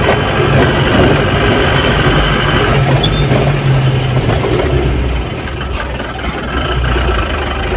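Car engine and road noise heard from inside the cabin while driving slowly along an uneven road. The engine note drops lower about five seconds in.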